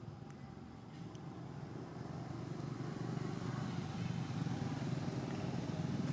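A small engine running steadily with a low, fast pulsing, slowly growing louder.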